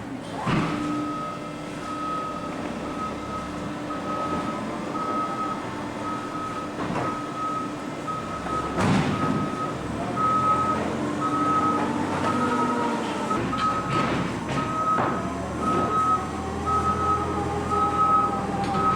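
Vehicle backup alarm beeping at an even pace, starting about half a second in, over machinery running, with a few knocks and clatters, the sharpest about nine seconds in.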